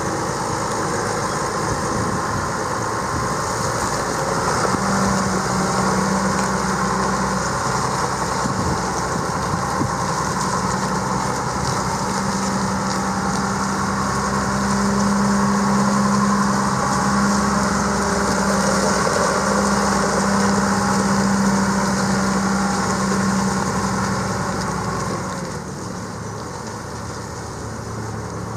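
John Deere 7220 tractor's 6.8-litre six-cylinder diesel engine running steadily, with a steady low hum through most of the stretch. The hum stops and the sound drops a little in level near the end.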